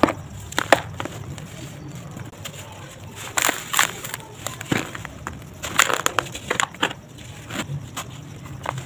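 Dry sand-cement lumps crushed and crumbled by hand, giving irregular crunching and crackling as the chunks break and the crumbs fall into loose powder. The crunches come in clusters, loudest about three and a half and six seconds in.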